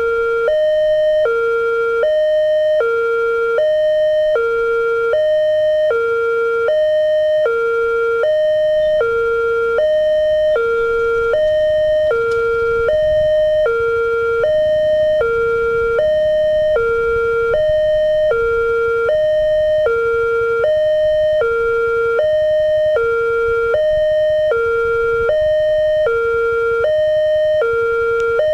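Railway level-crossing alarm sounding a steady two-tone warning, a higher and a lower tone taking turns about once a second each, while the crossing gate is closed for an approaching train. A faint low rumble sits under it in the middle.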